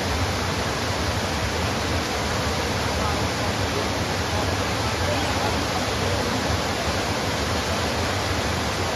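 Waterfall cascading over stepped rock ledges into a pool: a steady, even rush of falling water.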